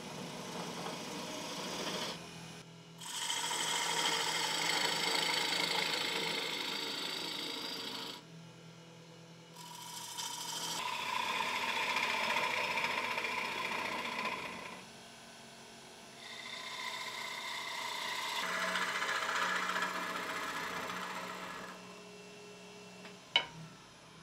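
Wood lathe running with a steady hum while a tool is pressed against the spinning sycamore in three passes of about five seconds each, giving a scraping hiss with a steady ringing tone. A single sharp click near the end.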